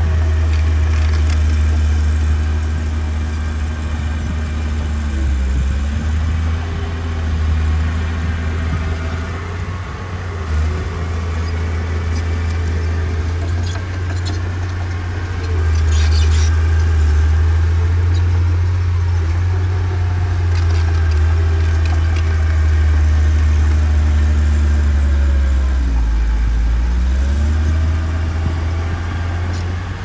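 Diesel engine of a small bulldozer running under load, its pitch sagging and recovering twice, about five seconds in and near the end, with brief clattering about fourteen to sixteen seconds in.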